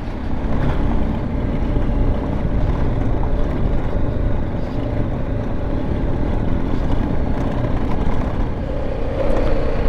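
BMW G310GS single-cylinder motorcycle engine running at low speed on a rough gravel track, with a steady rumble of tyres on the gravel. The engine note gets louder near the end.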